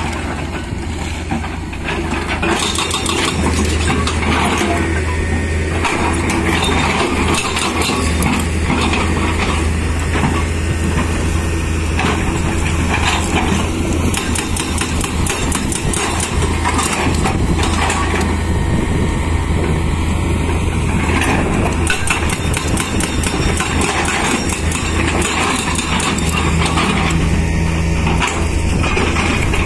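Hydraulic rock breaker on a Tata Hitachi excavator hammering rock in repeated rapid blows, over the steady drone of the excavator's diesel engine.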